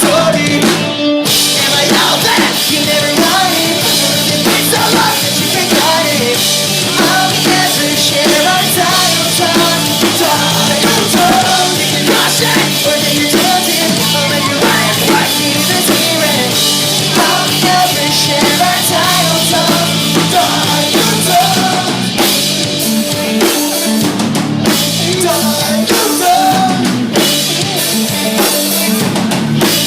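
Pop-punk band playing live, with a full drum kit and guitars driving a steady rock beat.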